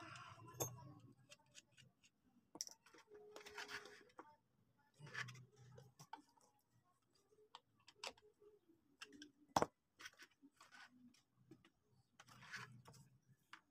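Faint scattered clicks and short scrapes of hands handling an electric fan's plastic blade and hub, with one sharper click about two-thirds of the way through.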